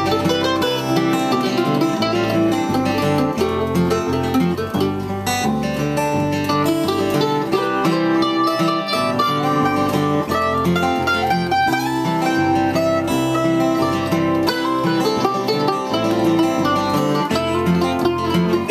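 Acoustic guitar and F-style mandolin playing together in a steady folk tempo, an instrumental break with no singing.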